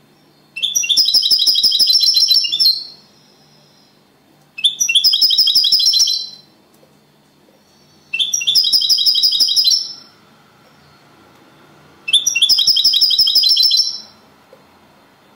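European goldfinch singing four rapid, trilled song phrases of about two seconds each, with pauses of a second or two between them. The song is of the Spanish 'copia Málaga' style used in goldfinch singing contests.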